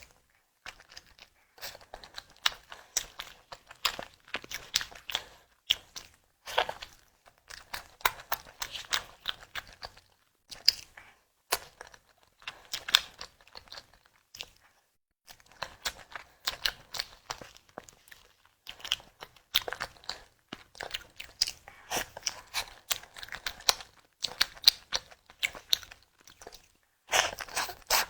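Close-miked eating sounds from a tiger skin dessert: bites and chewing with many small crunches and wet mouth clicks, in bursts of a few seconds with short pauses between them.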